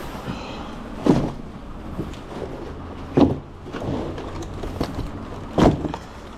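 Three heavy thuds, about two seconds apart, over a steady low hum, as cases of product are handled in a food delivery truck.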